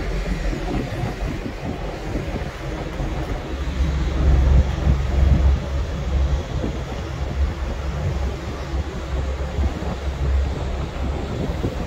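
Steady low rumble of wind buffeting the microphone on the open deck of a tanker under way, over the hiss of sea water along the hulls. It swells about four to six seconds in.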